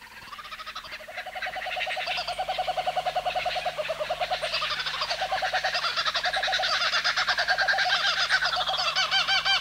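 Laughing kookaburras calling in chorus: rapid rolling chuckles from several birds overlapping, fading in over the first couple of seconds and growing louder.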